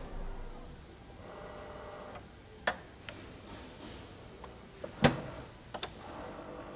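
Tube-widening machine working on copper tube ends: a steady low mechanical hum with a brief whir about a second in. Sharp metallic clacks come about two and a half seconds in and, loudest, about five seconds in, with a few lighter ticks between.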